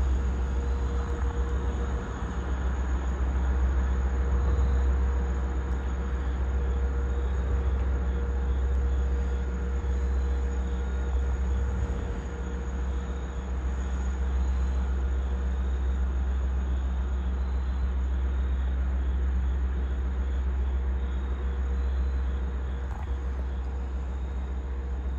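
LIRR DM30AC diesel locomotive idling: a steady low engine drone with a steady mid-pitched whine over it.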